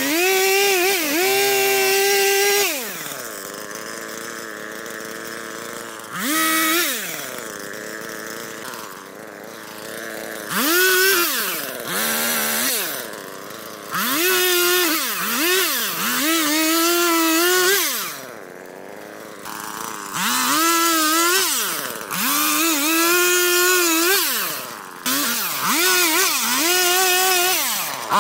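Husqvarna 440 two-stroke chainsaw revving to full throttle in repeated bursts of one to four seconds while cutting through pine branches, its engine dropping back to idle between cuts.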